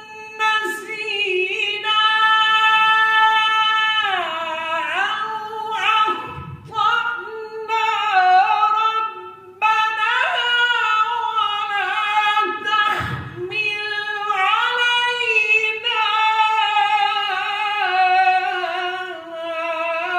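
Solo male voice reciting the Quran in melodic tilawat style, unaccompanied, holding long high notes with sliding ornaments between them and a few short breaks for breath.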